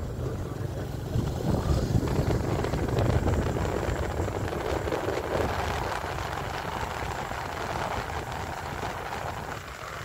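Motorcycle on the move: engine running under heavy, gusting wind noise on the microphone, a dense rumble with no clear pitch.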